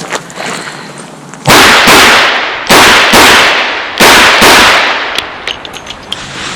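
Six shots from a Chiappa Rhino .38 Special revolver fired in three quick pairs, each pair a double tap, starting about a second and a half in. Each shot is very loud and rings out briefly.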